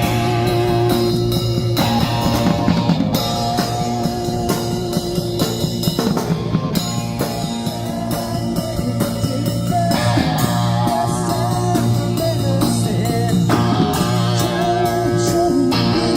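Live rock band playing: electric guitar over bass and drums with a steady beat.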